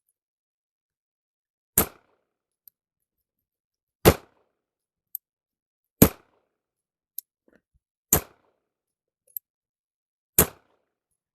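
SIG P320 X5 pistol fired five times in slow, deliberate single shots, about two seconds apart. A faint small tick falls between each pair of shots.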